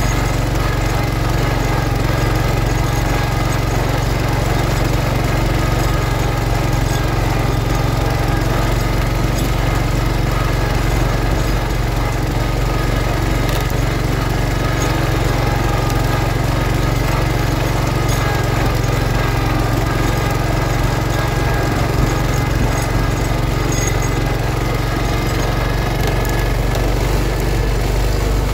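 1971 John Deere 140 H3 garden tractor's single-cylinder Kohler engine running steadily under load, pulling a Brinly sleeve-hitch moldboard plow through sod.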